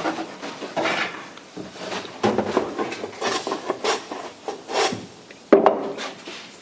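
Laminate sheet and wood being worked by hand: a run of irregular scraping and rubbing strokes, then a sharp knock about five and a half seconds in.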